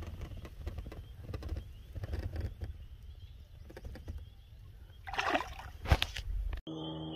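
Low rumble of wind and handling on the phone's microphone while a caught bass is held. About five seconds in, the bass is let go back into the lake with a short splash, followed by a sharp knock. Near the end the sound cuts abruptly to a steady hum with several pitches.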